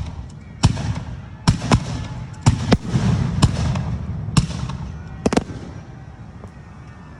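Fireworks going off in an irregular string of sharp bangs, about nine in the first five and a half seconds, some in quick pairs, each ringing out briefly before the next.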